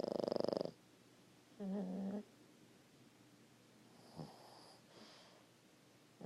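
A pug snoring in its sleep: a loud fluttering snore at the start, a shorter pitched, droning snore about two seconds in, and fainter, wheezy breaths around four to five seconds in.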